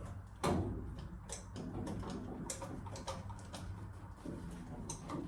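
Irregular clicks and knocks of hand work on timber battens and tools, with one louder knock about half a second in, over a steady low hum.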